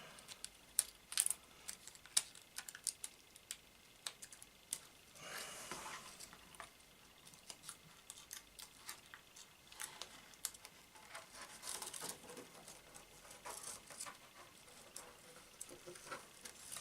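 Faint handling sounds of clear polyester (Mylar) film and mounting board: scattered light clicks and taps, with a couple of brief rustles, as the film's legs are worked through slots in the board.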